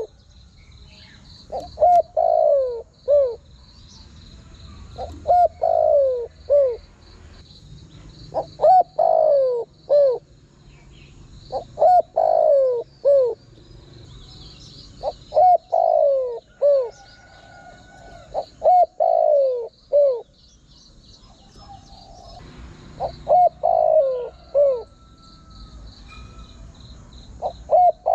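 Spotted dove cooing: a phrase of several falling notes repeated about every three to four seconds, eight times over, with a faint high chirping of small birds or insects underneath.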